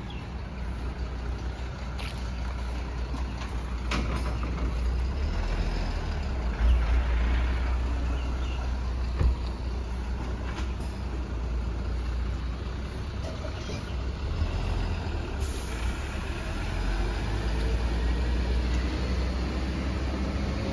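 MAN TGM 18.250 delivery truck's six-cylinder diesel engine running with a steady low rumble as the truck pulls away, louder about a third of the way in, with a few short sharp clicks along the way.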